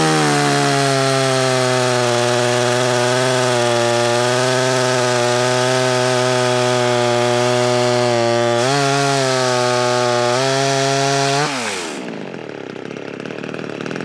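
Small two-stroke top-handle chainsaw, a cheap Stihl clone, held at full throttle while it cuts through a log. Its pitch sags slightly under load and rises briefly about two-thirds through. About eleven and a half seconds in, the throttle is released and the engine drops back to a quieter idle.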